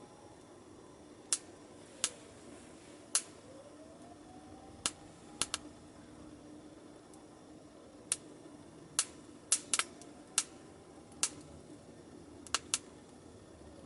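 Wood fire crackling in a small camp stove: sharp, irregular pops, about fifteen of them, over a faint steady low hum.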